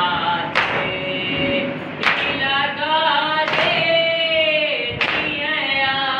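Unaccompanied nauha, a Shia lament, sung by a boy's voice in long held, wavering lines, with a chorus of voices joining. Men beat their chests (matam) in time with it, one sharp slap about every one and a half seconds, four strikes in all.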